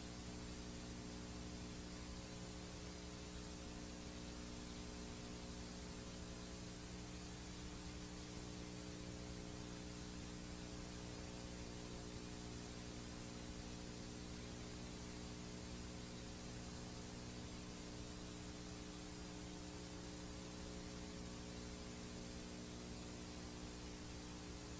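VHS tape playback noise: a steady, faint hiss with a low hum under it.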